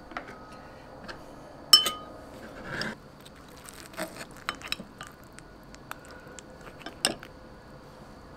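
A spoon clinking and scraping against ceramic dishes while soup is served and eaten. There is one sharp ringing clink just under two seconds in and a short scrape about a second later, then a run of lighter clicks and taps, with another clink near the end.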